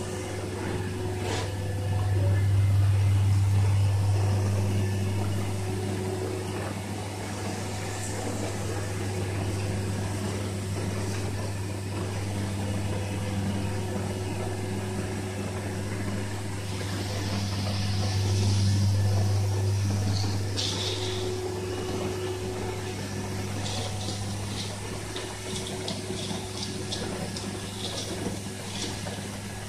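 Cellulose insulation being wet-sprayed into open stud walls: a steady low hum from the blowing rig with a rushing hiss of air, water mist and fibre from the hose nozzle, swelling louder twice. A run of light ticks comes near the end.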